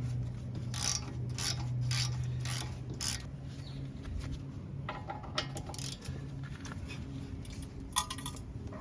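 Hand tools working on metal: a run of short clicking, ratcheting strokes, then scattered clinks, with a sharper click near the end, over a steady low hum.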